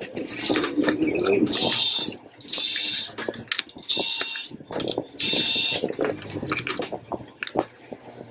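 Cordless electric screwdriver running in four short bursts of about half a second each, backing out screws from a metal amplifier plate, with clicks of handling in between.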